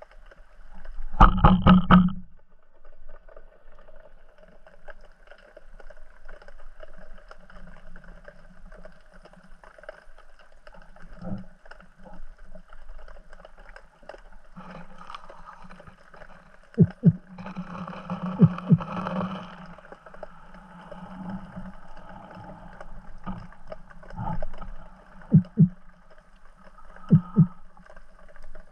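Underwater sound heard through a diving action camera: a low steady rush of water with a series of short knocks and thuds, the loudest about a second in, a cluster near the middle and two pairs of sharp knocks near the end.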